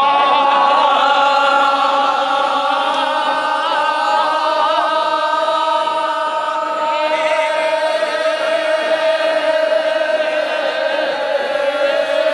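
A group of men singing a traditional Japanese festival chant in unison, holding long drawn-out notes that waver in pitch.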